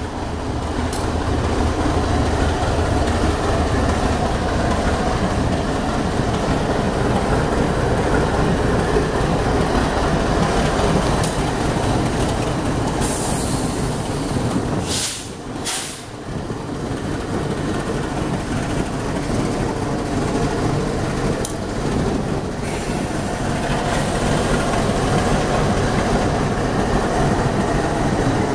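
GE ES43BBI diesel-electric locomotive rolling slowly past with its engine running in a steady drone, mixed with wheel and rail noise. A short hiss comes about halfway through.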